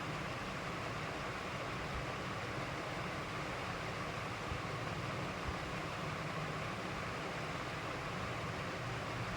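Steady background hiss and low rumble with no clear events, apart from two faint ticks near the middle.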